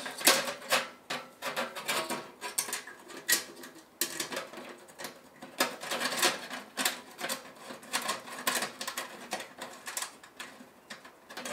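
Thin titanium stove parts being handled and fitted together: irregular light clicks, taps and rattles with some scraping, the loudest clack about a third of a second in.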